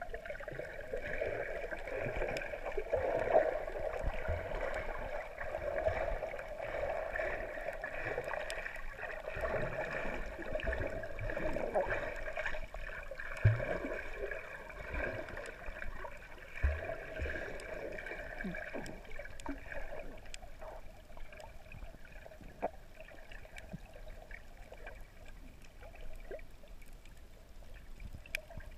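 Muffled underwater sound of sea water around a submerged camera: a steady wash with scattered low thumps and faint clicks, easing off in the last third.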